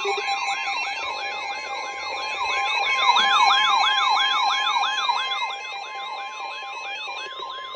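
Weather radio alarm going off: a steady NOAA Weather Radio warning tone of about 1050 Hz under a siren-like alert of falling sweeps, about three a second, signalling an incoming severe thunderstorm warning.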